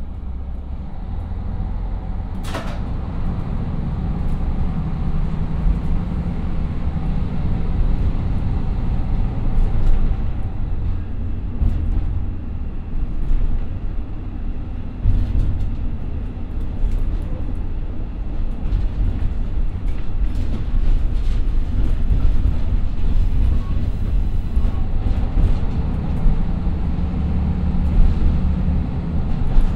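JR Shikoku KiHa 54 diesel railcar, heard from inside the cabin, pulling away from a stop: its two under-floor Niigata DMF13HS diesel engines running under load, the low engine and running noise building as the car gathers speed. Occasional sharp clicks and knocks, the strongest about two and a half seconds in.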